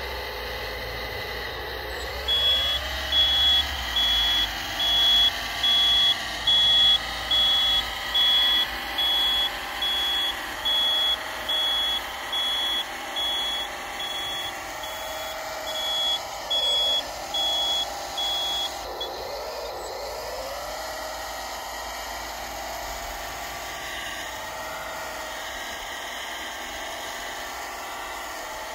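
Reversing alarm of a 1/14-scale RC hydraulic wheel loader beeping about once a second as it backs up, stopping after about 19 seconds. Under it the model's electric hydraulic pump whines steadily, its pitch dipping and recovering a few times as it takes load.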